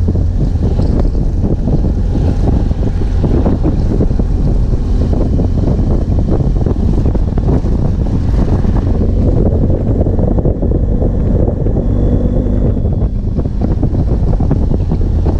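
Steady, loud wind buffeting on an action camera's microphone while a BMW F800GS Adventure rides a dirt road, with the bike's 798 cc parallel-twin engine and tyres on the gravel running under it as a low rumble.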